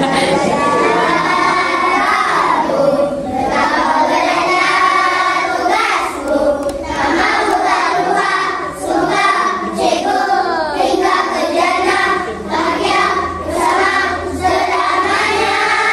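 A group of young children singing together as a choir, in phrases broken by brief pauses for breath.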